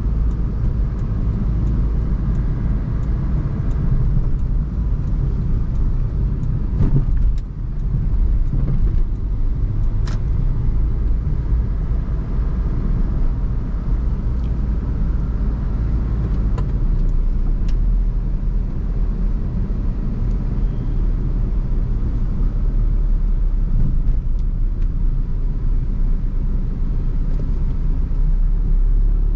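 Swift Dzire car driving, a steady low rumble of engine, tyres and road with a few short ticks now and then.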